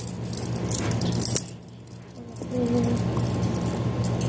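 Toy handcuffs rattling and clicking as they are fastened on a wrist, with one sharp click about a second and a half in.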